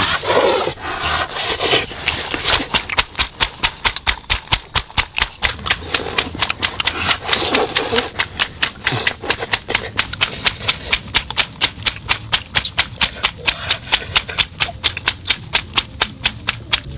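Rapid, even clicking or knocking, about five strokes a second.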